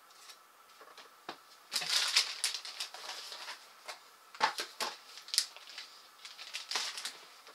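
Cardboard boxes and packaging being handled on a tabletop: a stretch of rustling and scraping about two seconds in, then a few sharp clicks and taps as a box is set down.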